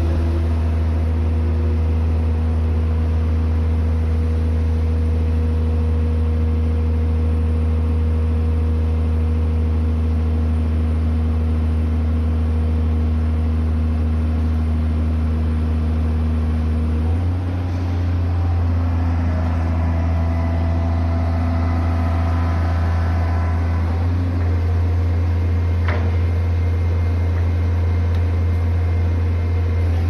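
XCMG truck crane's diesel engine running with a steady low hum. About halfway through, its note steps up slightly and faint rising whines come in for several seconds.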